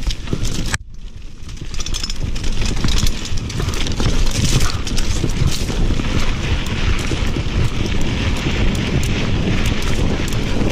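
Wind buffeting the action-camera microphone and mountain-bike tyres rolling fast over a dry dirt trail, with frequent clicks and rattles from the bike over bumps. The noise drops sharply just under a second in, then builds back up as the bike gathers speed.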